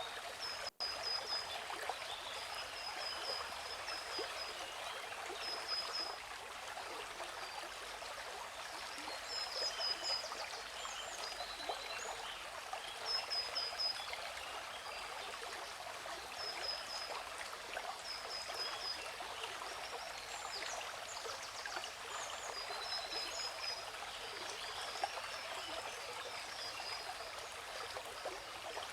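Steady rush of a waterfall, with small birds giving runs of short, high, repeated chirps over it. The audio cuts out for an instant just under a second in.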